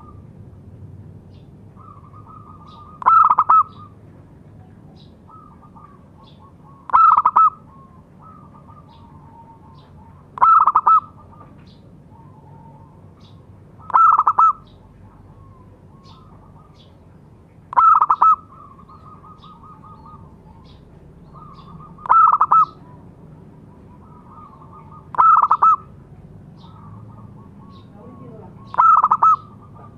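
Zebra dove (perkutut) calling: a short, loud cooing phrase about every three and a half to four seconds, eight in all, with softer trilled coos between them.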